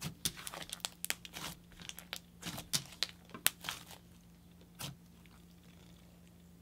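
Thick, stiff, overactivated DIY clay slime being pressed and stretched by hand, giving a quick run of small crackles and pops for about four seconds and one more pop near five seconds. A faint steady hum lies underneath.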